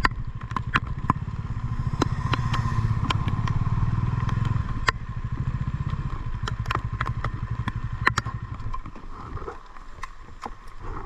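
Motorcycle engine running at low speed with an even low pulse, then stopping about nine seconds in. Scattered sharp clicks and ticks sound over it.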